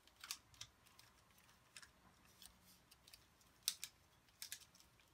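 Hard plastic toy parts of a Mighty Morphin Megazord clicking and ticking faintly as the pieces are handled and fitted together. A few light clicks come in the first second, and a sharper cluster about three and a half to four and a half seconds in.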